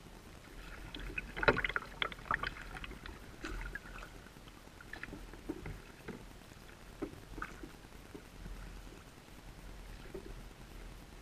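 Kayak paddling and water movement heard with the camera underwater: a quick cluster of sharp clicks and knocks about one to three seconds in, then scattered single clicks and knocks over a faint water hiss.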